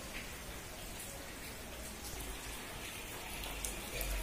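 Steady rain falling onto a flooded street, drops splashing into the standing water.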